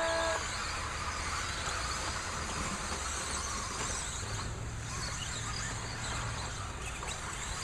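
A pack of electric RC stadium trucks racing, with motor whine and tyre noise as a steady hiss. The electronic start tone cuts off just at the beginning.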